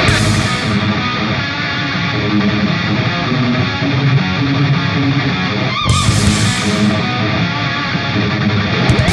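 Background rock music led by electric guitar, with held notes that waver.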